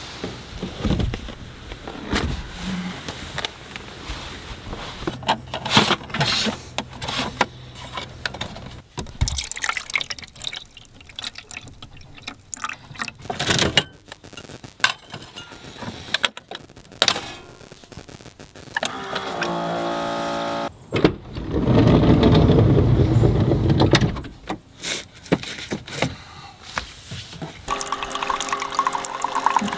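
Clicks and knocks of things being handled, then a Keurig single-serve coffee maker runs: a steady pump hum followed by a louder stretch as it brews coffee into a mug, with the hum coming back near the end.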